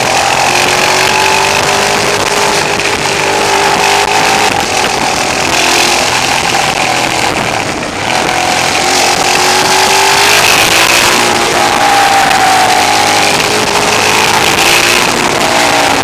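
Twin-cylinder motorcycle engine running on the road, its revs rising and falling through the bends, with a short easing-off about eight seconds in. Wind rushes over the microphone, and the recording is overdriven and harsh because the camera's sound level was set too high.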